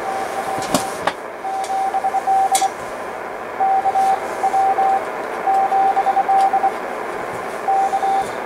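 SBE SB-36 HF transceiver receiving a Morse code (CW) signal on the 20-metre band: a single steady tone keyed on and off in dots and dashes over band hiss, with a few crackles of static.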